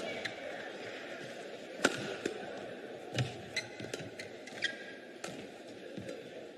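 Badminton rally: sharp racket strikes on the shuttlecock every second or so, the loudest about two seconds in, with short squeaks of shoes on the court mat between them over a steady hall hum.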